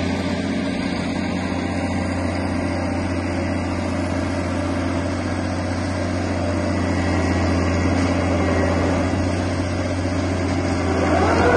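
Volvo diesel engine of a 1993 Akerman EC420 tracked excavator idling with a steady low hum. A brief louder sound joins it near the end.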